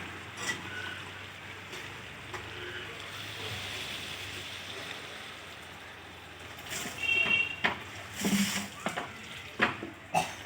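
Hot water being added to a pan of frying chilli chicken: a steady sizzle, then, in the last few seconds, several louder splashes and sharp metal clinks of a utensil against the pan.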